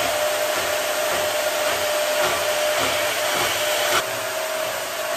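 Harbor Freight portable band saw in a benchtop table running steadily with a steady whine, its blade cutting through steel exhaust tubing. The sound drops a little about four seconds in.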